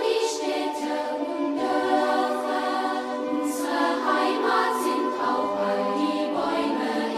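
A choir singing long held chords that shift every second or so, with soft sibilant consonants.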